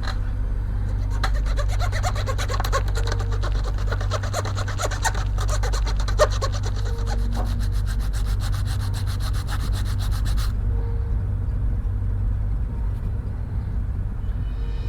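Small hand saw cutting through thin wooden grating strips with quick back-and-forth strokes, stopping abruptly about ten seconds in.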